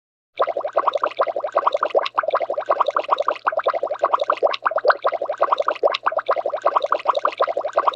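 Cartoon water-bubbles sound effect: a rapid, continuous stream of bubbling pops that starts about half a second in.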